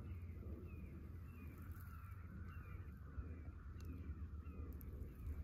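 A bird calling over and over: short falling notes, about two a second, over a faint low rumble.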